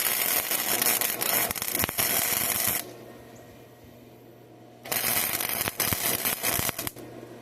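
Electric arc welding crackling in two bursts, the first about three seconds long and the second about two, with a pause between them.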